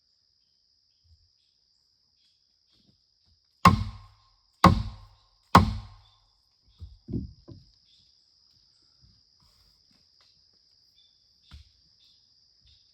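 Three heavy blows about a second apart, a tool striking wood with a short ringing note on each hit, followed by a few softer knocks. A steady high insect trill runs underneath.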